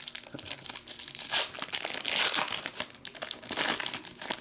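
Foil wrapper of an Upper Deck hockey card pack being torn open and crinkled by hand: a run of irregular crackles, loudest a little over a second and about two seconds in.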